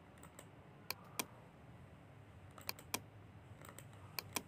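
Faint, scattered clicks of a computer mouse, about eight in all, some single and some in quick pairs.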